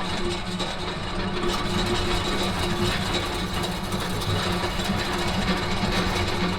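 A machine running steadily with a continuous mechanical whir and hum.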